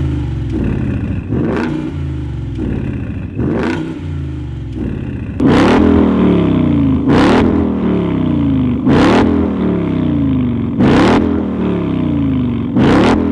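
Ford Mustang GT's 5.0 V8 through a 76 mm DD Exhaust valved system, revved in repeated quick blips, each falling back in pitch toward idle. For the first few seconds the exhaust valves are closed (Normal mode) and it is quieter. About five seconds in the valves are fully open (Track mode), and the blips become louder, about two seconds apart.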